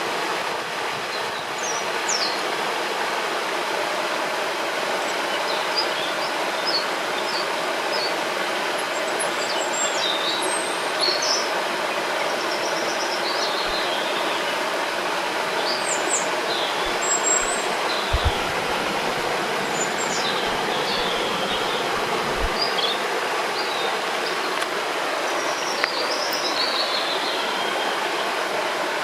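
Steady rush of a river or waterfall, with small songbirds chirping and calling now and then over it. A few brief low thumps come in the middle.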